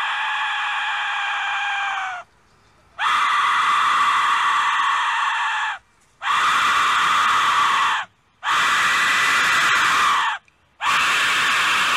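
Aztec death whistle, a skull-shaped whistle, blown in long, piercing, scream-like blasts. One blast ends about two seconds in, then four more follow, each two to three seconds long with a brief pause between, the last still sounding at the end, and each drops in pitch as it dies away.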